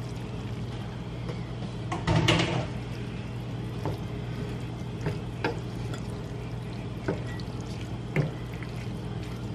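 Cooked pasta tumbling into a stainless steel skillet of saucy taco meat and being tossed with a wooden spoon: a louder wet rustle about two seconds in, then scattered knocks of the spoon against the pan, over a steady low hum.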